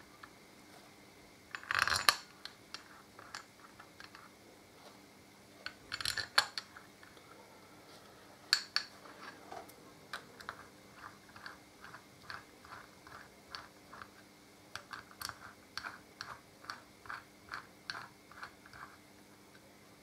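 Chrome-plated metal brake caliper parts clinking together about two and six seconds in as the caliper halves are fitted back together. From about ten seconds in comes a steady run of small ratchet clicks, about three a second, as the caliper bolts are run down.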